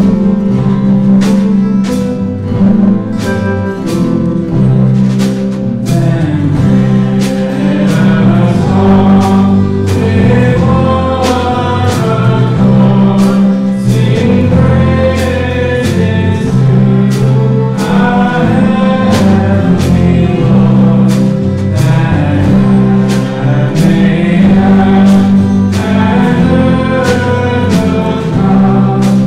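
Contemporary worship song played live by a band: low bass notes and a steady beat of about two strokes a second, with voices singing the melody from about six seconds in.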